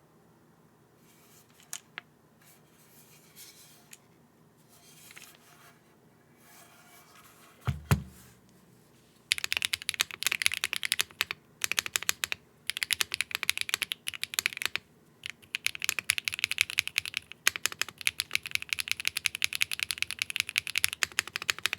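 Fast typing on a Mode Tempo mechanical keyboard with HMX Macchiato linear switches on a carbon-fibre plate, in bursts of rapid key clacks with short pauses between them. Before the typing starts, about nine seconds in, there are only a few faint rustles and clicks and one low thump.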